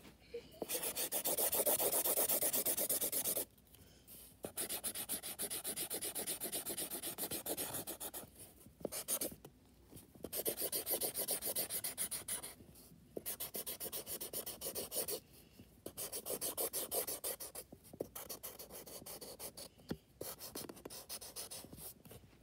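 Felt-tip marker scribbling rapidly back and forth on paper while colouring in a large area. The strokes come in spells of a few seconds with short pauses between them.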